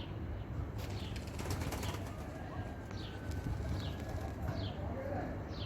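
Pigeons' wings clattering in a quick burst of claps about a second in, with short falling bird chirps repeating about once a second over a low steady rumble.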